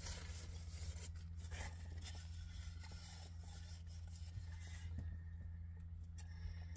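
Soft rustling and scraping as an adhesive bandage is handled and put on a cut finger, busiest in the first two seconds, then a few small clicks, over a steady low hum.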